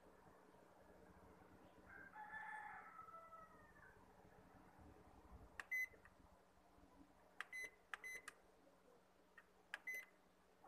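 Toshiba copier's control-panel keypad beeping as number keys are pressed in service mode: short high beeps, one about halfway through, a quick run of four, then two more near the end. A fainter wavering, gliding call comes a couple of seconds in.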